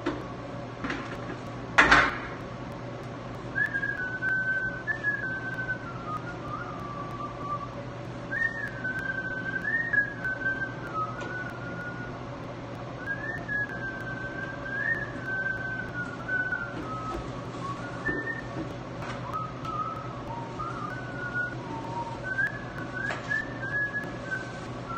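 Someone whistling a tune in a string of short melodic phrases over a steady low hum. One sharp knock about two seconds in, the loudest sound, comes just before the whistling starts.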